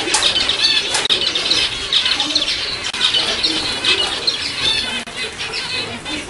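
Many zebra finches calling at once: a dense, continuous chorus of short chirping calls overlapping one another.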